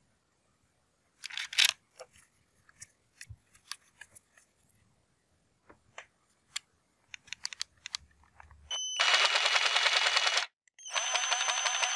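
A short scrape and a series of light clicks and taps of handling, then an electric jigsaw switched on, running with a high whine for about a second and a half, stopping briefly and starting again.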